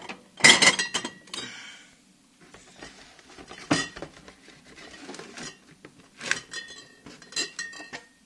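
Drinks clinking and knocking against each other and the shelves as they are stacked into a refrigerator, a run of separate hits, some with a short ringing clink, loudest about half a second in.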